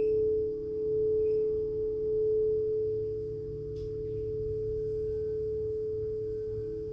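Frosted quartz crystal singing bowls ringing with sustained, pure tones: two steady pitches held together, swelling gently, with the lower one growing stronger near the end.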